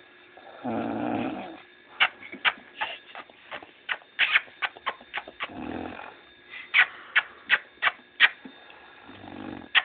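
Someone sound asleep, snoring: three rattling snores about four seconds apart. Between them comes a run of sharp, quick clicks, about three a second.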